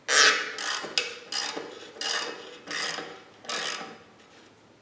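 Hand-tool work on the steel of a rusty plow: about six short, evenly spaced metallic strokes, with one sharp click about a second in.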